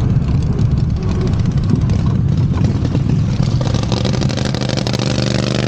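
Golf cart driving over bumpy grass and dirt, giving a steady low rumble with some rattling. About three and a half seconds in, the steady hum of a small engine comes in and grows louder toward the end.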